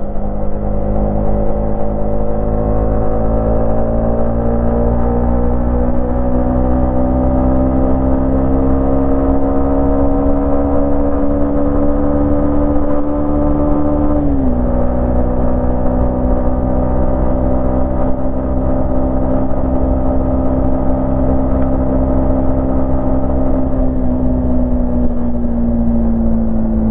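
Yamaha MT-15's 155 cc single-cylinder engine and exhaust pulling on the move, its note climbing slowly, dropping sharply about halfway through at a gear change, then holding steady and easing off slightly near the end.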